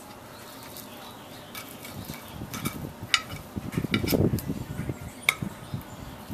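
A metal fork clinking and scraping against a plate as a piece of brisket is cut and picked up: a handful of sharp, short clinks spread over a few seconds, with duller low knocks and rustling among them.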